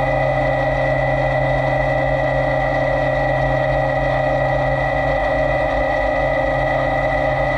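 CNC lathe running steadily during a bar-fed job: a constant machine hum with a high, unchanging whine over it.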